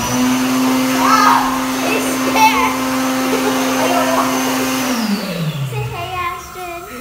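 Electric hand dryer running at full speed with a steady motor hum and a high whine, then winding down and stopping about five seconds in.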